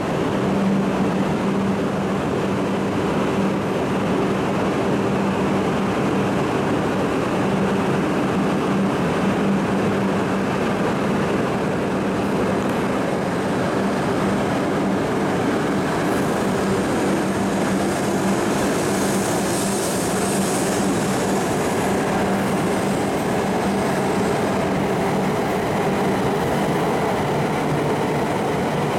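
E5-series Shinkansen train, with coupled E6-series cars, departing and gathering speed as its cars roll past: a steady rolling rumble with a low hum underneath. A high hiss swells for a few seconds past the middle.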